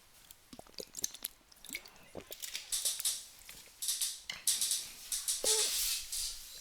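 Irregular small clicks and a few short hissy rustles, typical of a computer mouse being clicked and dragged on the desk close to the microphone.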